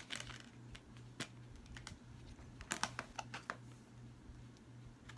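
Faint plastic clicks and snaps from handling a Blu-ray case and taking a disc off its hub: a few scattered clicks, then a quick run of them about three seconds in.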